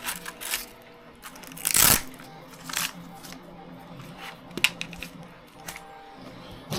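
Hands handling a soft-case LiPo battery pack against plastic RC car parts: a run of light clicks, taps and rustles, with one louder scrape or rustle about two seconds in.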